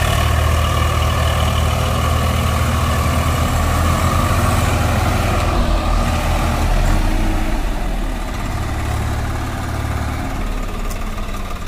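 Swaraj 744 FE tractor's three-cylinder diesel engine running hard under load, pulling a second tractor that is stuck in deep mud. The engine note eases a little past the middle and then picks up again.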